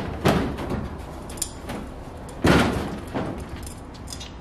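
Loose fiberglass hood being test-fitted on a Chevy S10, knocking and thudding against the truck's body as it is pressed down and shifted into place. There are several thuds, the loudest about two and a half seconds in.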